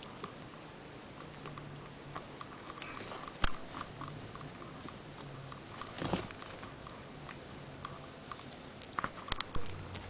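Young kittens tussling on blankets: soft rustling with scattered small taps and clicks, a sharper tap about a third of the way in, a rustling bump about six seconds in and a quick cluster of clicks near the end.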